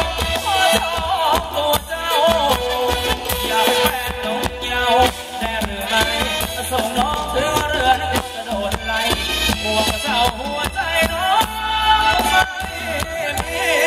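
Live band playing Thai ramwong dance music with a steady beat, electric guitars and a wavering lead melody.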